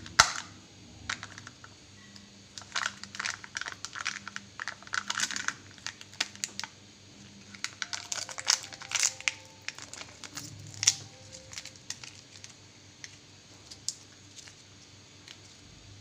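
Foil seal being peeled off a Kinder Joy's plastic treat tray: crinkling and tearing crackles, a sharp one just after the start, then two thick spells of a few seconds each, quieting near the end.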